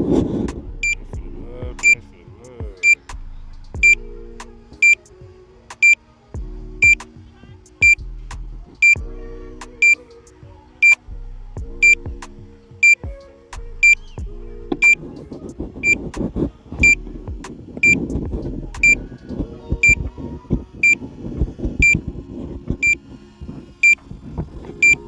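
Drone remote controller beeping a short, high alert about once a second, the warning it sounds while the drone is on its return-to-home flight.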